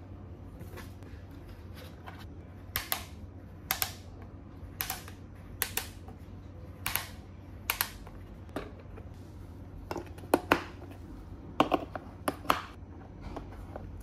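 Hard plastic clicks and taps from a toy kitchen playset as fingers press it and turn its dials, often in pairs, about one a second, over a faint low hum.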